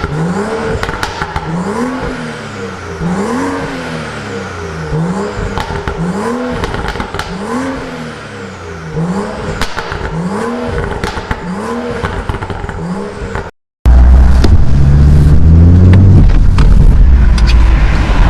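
BMW M235i's turbocharged inline-six, breathing through a catless downpipe, blipped over and over about once a second, each rev rising and falling in pitch. After a sudden cut, a much louder, deeper engine sound climbs in pitch under acceleration.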